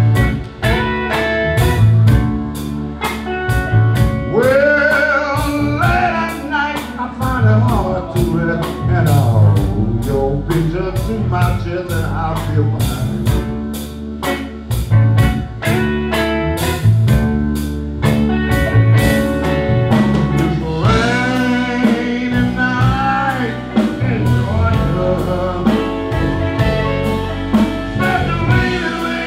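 Blues band playing live: amplified harmonica taking an instrumental solo with bending notes over hollow-body electric guitar, electric bass and a steady drum kit beat.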